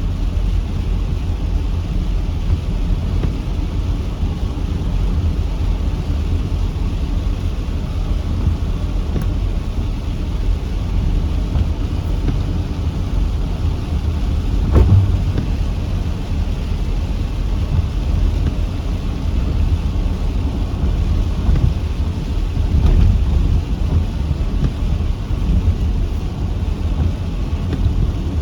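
Heavy rain pouring steadily, with a deep constant rumble beneath it and a short louder thump about halfway through.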